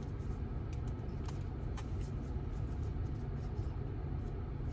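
Steady low rumble of a car's engine and road noise heard from inside the cabin while driving, with a few faint clicks.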